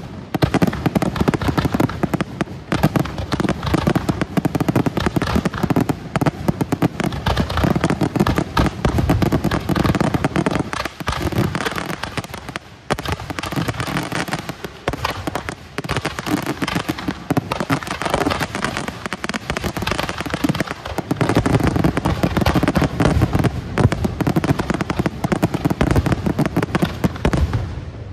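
Fireworks display: a rapid, near-continuous barrage of overlapping bangs and crackle, with a brief thinning about eleven to thirteen seconds in.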